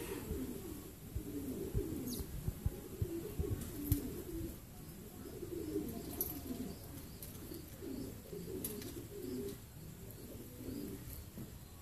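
A dove cooing repeatedly in low, wavy phrases of a few notes each, with a few faint sharp clicks.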